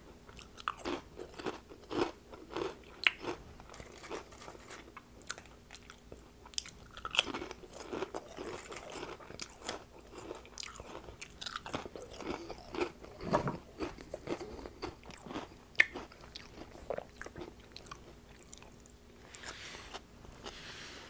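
Close-miked crunching and chewing of ridged potato chips dipped in sour cream chip dip, many sharp crunches one after another. Near the end a paper napkin rustles briefly.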